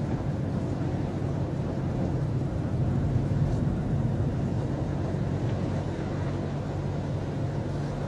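Steady car engine and tyre noise heard from inside the cabin while driving slowly on a snow-covered road, with a low, even drone.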